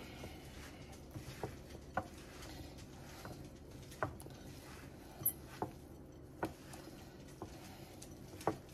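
Hands mixing ground turkey, breadcrumbs and grated Parmesan in a glass bowl: faint, irregular squishes and soft clicks as the still-dry meat mixture is kneaded and pressed.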